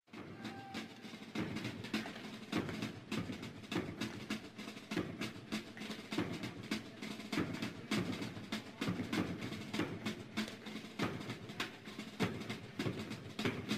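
Snare drumming with drum rolls, in the manner of a military drum cadence: dense, rapid strokes that start abruptly after a short silence and run on steadily.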